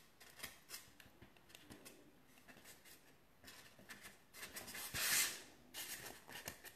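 Faint handling noise as a sugarpaste figure and small tools are worked by hand: scattered light ticks and rustles, with one louder rustling sweep lasting about a second, about five seconds in.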